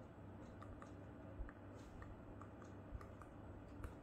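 Faint clicks and taps of a stylus tip on a tablet screen during handwriting, scattered and irregular, with a few sharper taps about one and a half, three and nearly four seconds in.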